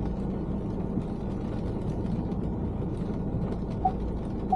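Car interior noise while driving in the rain: a steady low road and engine rumble. Near the end come two short, evenly spaced tones.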